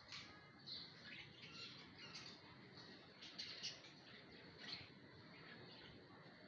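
Near silence with faint, brief, high chirps of small birds scattered through it.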